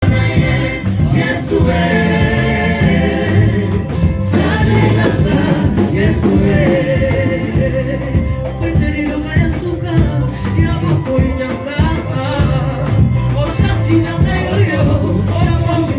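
Gospel worship music: singing over a full band with a steady drum beat.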